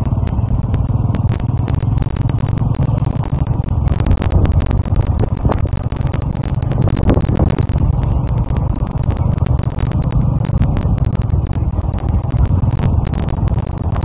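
Motorcycle riding along at speed: a steady low engine and road rumble mixed with wind buffeting the microphone, with frequent crackles.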